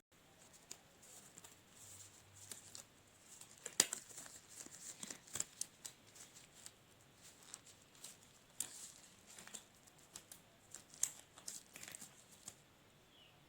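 Irregular rustling and crinkling from hands handling crinkly material, with scattered light snaps and clicks, the sharpest about four seconds in and again around nine and eleven seconds.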